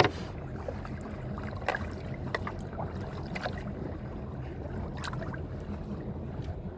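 A wake boat's inboard engine running at low speed with a steady low hum, with a handful of sharp knocks and clicks on the boat, the loudest right at the start.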